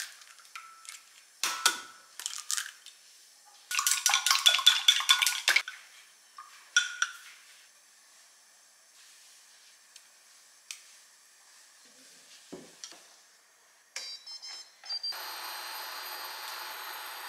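Eggs cracked on the rim of a glass mug, then beaten briskly with wooden chopsticks, a fast run of clicks against the glass lasting about two seconds. Near the end a steady hiss starts.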